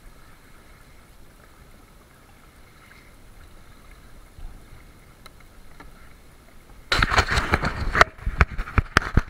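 Sailing kayak running through choppy sea: a faint wash of water along the hull, then, about seven seconds in, loud irregular splashing and rushing as waves slap the hull and spray hits the boat.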